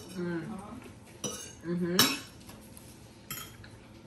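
A metal fork clinking against a dinner plate during a meal, three sharp clicks about a second apart, the loudest about two seconds in. Two short low hummed voice sounds come between them.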